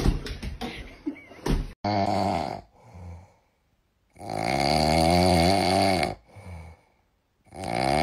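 Pet snoring loudly: three long, rasping snores about three seconds apart, each followed by a shorter, quieter breath. Before them, in the first two seconds, there is a short run of clicks and knocks.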